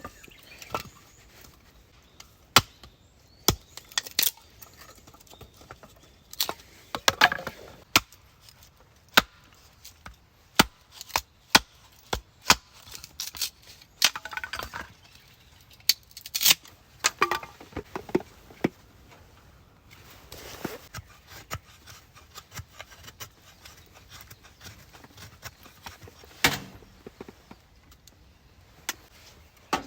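Irregular sharp knocks and cracks of hard objects being struck or handled, some close together and some a second or more apart, thinning out near the end.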